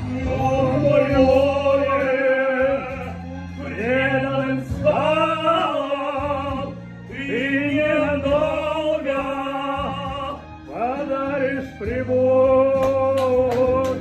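A man singing a Russian ballad in a full operatic tenor over a backing track, holding long notes with vibrato. A few sharp claps sound near the end.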